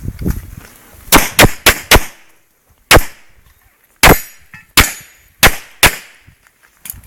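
About ten pistol shots fired during an IPSC practical shooting stage: a quick string of four, then single shots spaced more widely. Fainter knocks come before the first shot.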